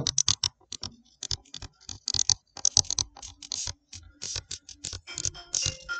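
A pen stylus tapping and scratching on a tablet or touchscreen in quick, irregular strokes while handwriting.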